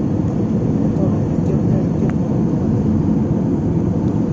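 Cabin noise of an Airbus A320-family jet airliner in flight, heard at a window seat: a steady, even, deep drone of engines and rushing air.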